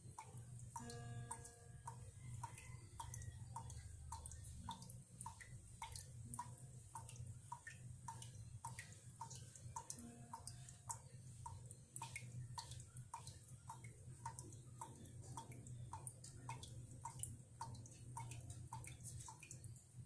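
Water dripping from a tap into a stainless steel basin of water: single drops plinking into the water about twice a second, in an even rhythm.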